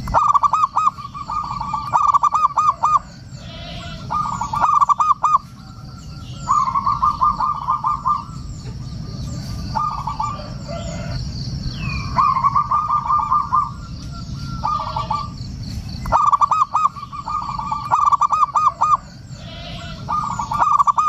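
Zebra dove (perkutut) cooing: repeated phrases of quick staccato notes, each a second or two long, coming again every few seconds. Faint high chirping runs beneath, over a low steady hiss.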